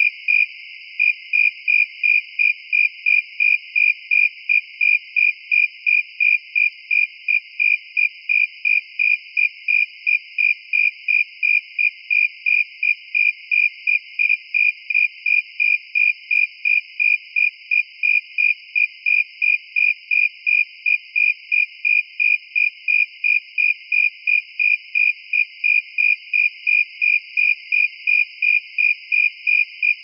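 A cricket chirping in a steady, even rhythm of short high-pitched chirps, about two and a half a second, with a brief pause just under a second in.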